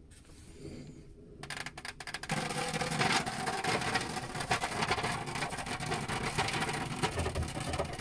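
A few clicks as a filter clip is worked loose on the boiler's hydraulic block, then water spilling and splattering from the opened filter housing onto the boiler's plastic casing below, continuous with fine crackling.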